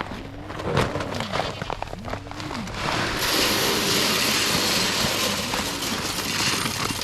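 Animals in the herd bleating several times. From about 3 seconds in, a steady hissing rush of dry feed being poured out.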